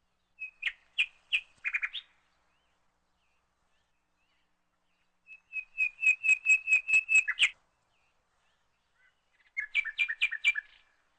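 A bird chirping in three quick runs of high, rapid notes, the middle run the longest and loudest.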